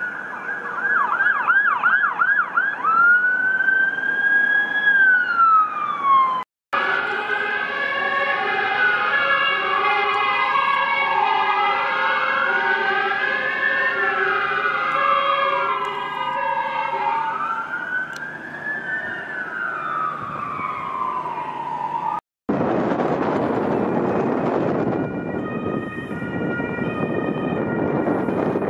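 Danish emergency vehicle sirens in three short shots: an ambulance siren in a fast yelp that switches to a slow rising-and-falling wail; then fire engine sirens, two wails overlapping and rising and falling every few seconds over a steady two-tone pattern; then loud engine and road noise with a high-low two-tone siren coming in near the end. The sound breaks off briefly twice at the cuts.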